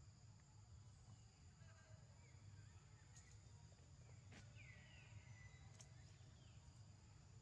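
Near silence: faint outdoor background with a steady high-pitched whine and a low hum. A faint short chirp comes about four and a half seconds in, with a few faint clicks around it.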